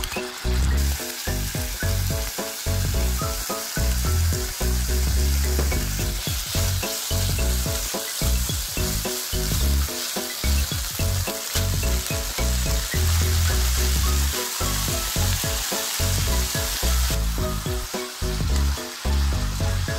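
Beef pieces sizzling in hot oil in a frying pan while being stirred and turned with a spatula. The sizzling dies down near the end.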